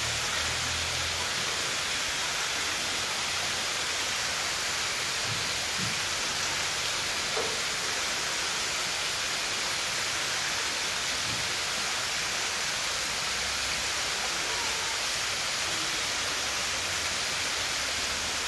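Steady rush of water falling down a water-wall fountain into a pool, an even hiss that does not change.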